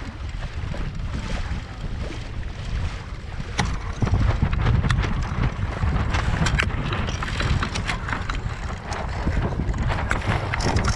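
Wind buffeting the microphone over the splashing and slapping of lake water against the hull of a Laser Pico sailing dinghy under way. It gets louder about four seconds in, with sharp slaps and spray.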